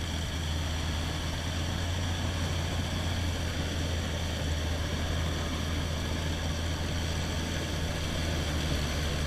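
Boat motor running steadily, an even low drone that holds the same pitch throughout.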